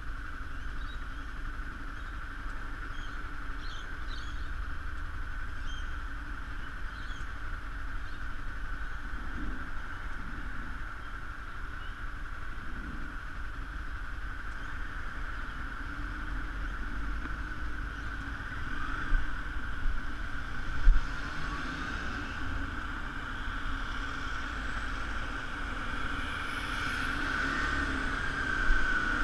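Steady road and wind noise of a bicycle ride, with two sharp knocks about two-thirds of the way in and the noise rising near the end.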